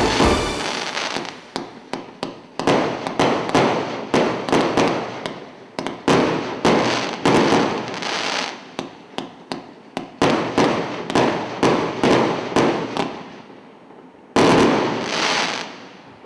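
A 1.2-inch, 49-shot fireworks cake firing in quick succession: sharp shots about two a second, each trailing off into the crackle of its bursting stars. After a short pause near the end, one last loud shot fires and trails off slowly.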